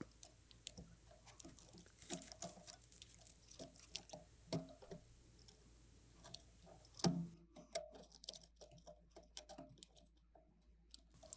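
Faint scattered clicks and small taps of a MacBook Pro logic board being pressed and worked down into its aluminium chassis by hand and with a thin prying tool, with a sharper knock about seven seconds in followed by a run of quick clicks.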